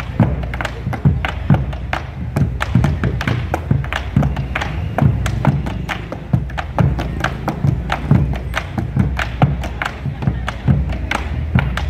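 Street music with heavy percussion: several sharp thumping hits a second, irregular and dense, over a steady low bass bed.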